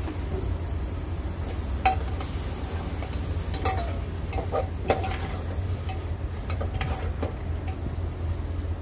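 Metal spoon stirring food frying in a pan on a gas stove, with a light sizzle and scattered clinks of the spoon against the pan, over a steady low hum.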